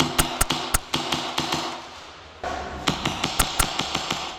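Airsoft gunfire: sharp single shots and cracks, a quick handful in the first second and another handful about three seconds in.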